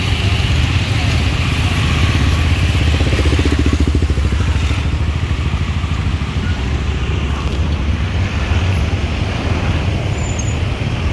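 Busy street traffic: motorbikes and cars driving past close by, with a steady low hum of engines and tyres. One engine passes very near about three seconds in.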